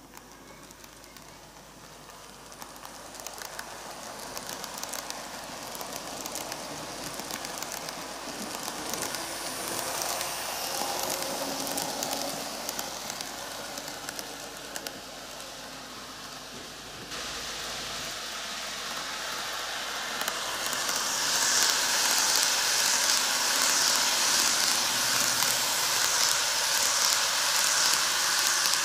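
N-gauge model electric trains running on sectional track: a dense, fast clicking of small metal wheels over the rail joints, with a light motor whir. It grows louder as a train comes round the curve and is loudest in the second half as a train passes close by.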